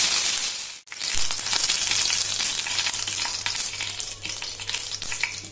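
Fresh curry leaves and fennel seeds sizzling and crackling in hot oil in a frying pan, the tempering (tadka) stage of a South Indian dish. It is loudest as the leaves hit the oil, breaks off briefly about a second in, then goes on as a steady spattering crackle.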